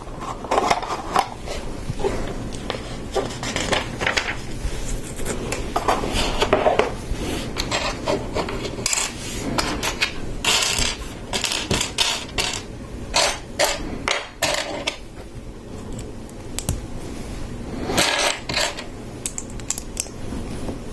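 Hard plastic Lego bricks and plates being handled and pressed together: scattered clicks, taps and scraping, in clusters.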